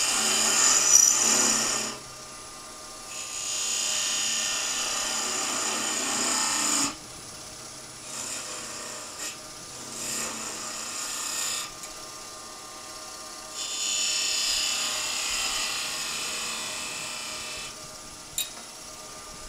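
Spindle gouge cutting a small cove into a wooden finial spinning on a lathe: a hissing scrape in four passes of two to four seconds each, with the lathe's steady hum between them.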